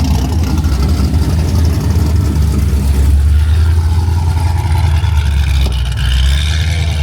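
Car engine running steadily, a loud, even low rumble.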